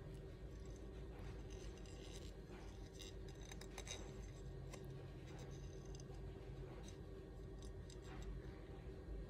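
Faint scattered clicks and light rustling of a plate being handled, over a steady low hum.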